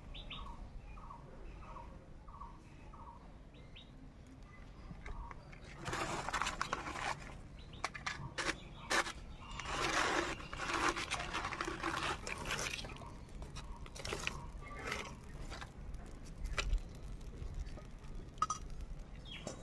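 Dry coconut husk, twigs and paper rustling and crackling as a wood fire is lit and fed in a clay mud stove. The rustles and sharp snaps are loudest from about six to thirteen seconds in.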